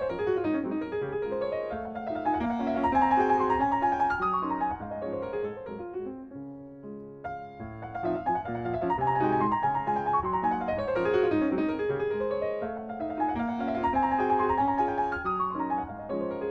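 Instrumental background music on piano: rippling runs of notes that sweep down and back up over and over, easing off briefly about seven seconds in before picking up again.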